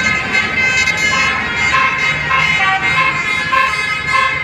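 Basuri multi-tone 'telolet' bus horn playing a quick melody of short stepped notes.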